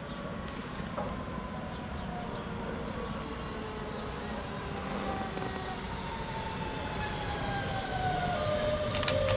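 DB Class 425 S-Bahn electric multiple unit coming in to the platform: its electric drive whines in several tones that fall slowly in pitch as the train slows, growing louder towards the end, with a couple of sharp clicks near the end.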